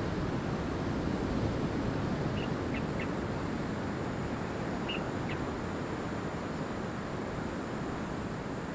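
Steady wash of beach surf and wind, with a few short, high bird chirps in two small clusters, about two and a half and five seconds in.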